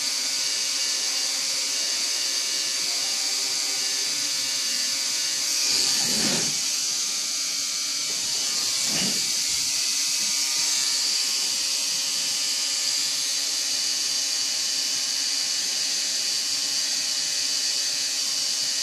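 Permanent-makeup machine buzzing steadily as it works hair strokes into an eyebrow, with two brief soft noises about six and nine seconds in.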